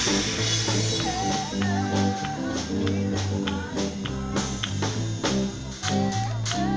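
Live band playing through PA speakers: drum kit hits and guitar over a moving bass line.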